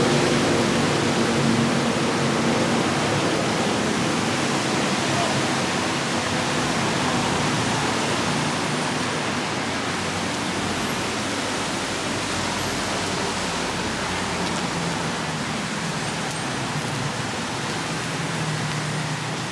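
Steady rain falling, an even hiss that eases slightly toward the end.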